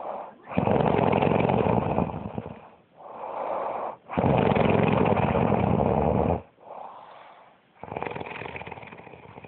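A sleeping woman snoring: three loud snores, each about two seconds long, the last one weaker, with quieter breaths between them.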